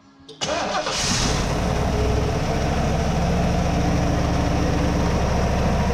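A Ford 460 V8 in a 1971 Lincoln Mark III starts about half a second in and settles into a steady idle, running with its fan and belts off. The newly replaced thermactor plug in the cylinder head no longer leaks exhaust, which the owner calls a success.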